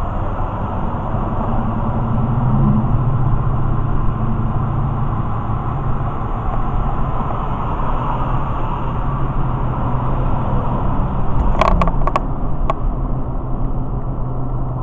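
Car engine and tyre noise heard from inside the cabin while driving at highway speed: a steady low drone that swells slightly a couple of seconds in. A short cluster of sharp clicks comes near the end.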